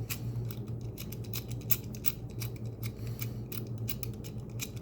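Number dials of a Master Lock Pro Series 1178 four-dial combination padlock being spun to scramble the combination, their detents clicking rapidly and irregularly.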